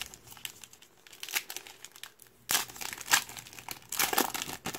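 Foil wrapper of a basketball trading card pack crinkling in the hands, then crinkling and tearing louder as it is ripped open from about two and a half seconds in.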